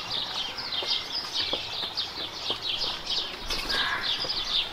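Small birds chirping in a steady, dense chorus of short high chirps, about five a second.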